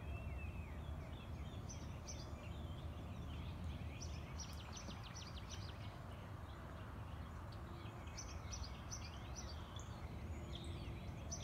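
Small songbirds chirping in the background, with two fast runs of short high notes about four and nine seconds in, over a steady low outdoor rumble.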